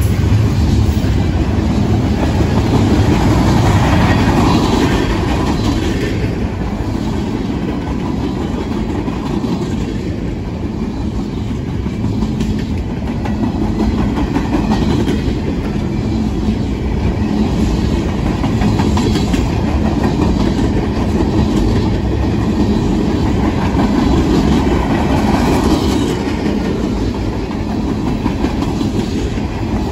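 Freight cars of a mixed freight train rolling past: a steady, loud rumble with wheels clacking on the rails.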